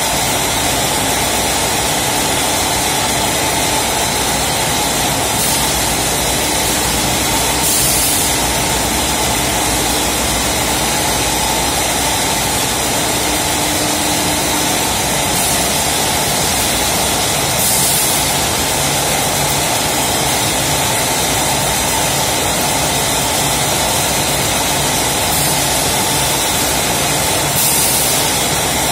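Large condensed-milk packaging machine running: a steady loud mechanical hum, with brief high hisses that come in pairs about two seconds apart and repeat roughly every ten seconds with the machine's cycle.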